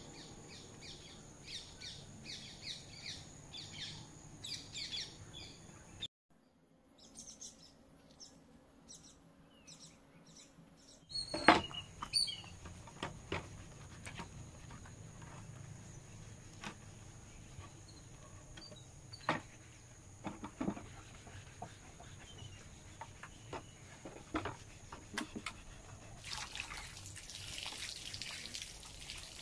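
Small birds chirping in quick repeated calls, then scattered sharp taps and clicks, one of them loud. Near the end, water splashes and trickles as a hand rinses soapy wooden sewing-cabinet panels.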